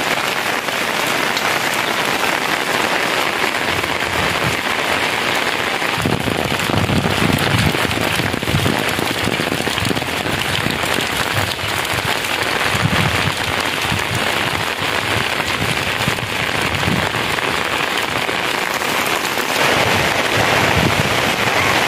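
Heavy rain falling steadily, hissing on the ground and vegetation. A few low rumbles come and go around the middle.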